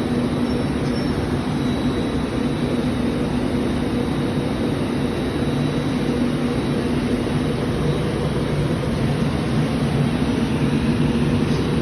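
Train running past, a loud steady noise with a low hum underneath that holds without a break.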